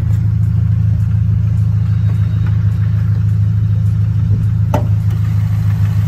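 Toyota 86 GT's 2-litre boxer four idling steadily, fitted with an aftermarket exhaust. A single sharp click comes about three-quarters of the way through.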